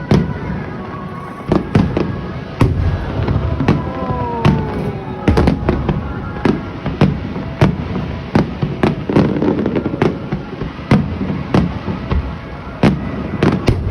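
Aerial fireworks bursting in a continuous barrage: sharp bangs about one or two a second, with a rumbling echo between them. A couple of brief falling tones sound about four seconds in.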